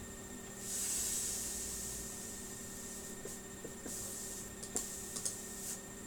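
Soft hissing rustles and a few light clicks over a steady electrical hum: desk-side handling noise at a computer.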